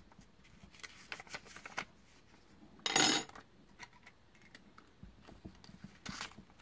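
A sharpened hollow brass tube punched through a sheet of paper: light paper rustling and scraping, then one short, loud crunch about three seconds in, and a softer one near the end.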